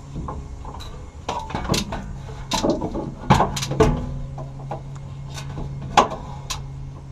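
Irregular sharp metal clicks and clanks of a bolt being fed through a fuel-tank mounting hole and a combination wrench being fitted and worked on it, over a steady low hum.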